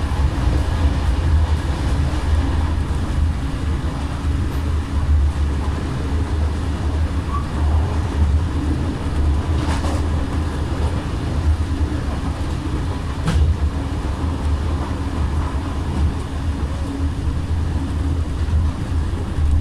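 A moving passenger train heard from aboard: a steady low rumble of wheels on rail, with a couple of brief sharp clicks about halfway through.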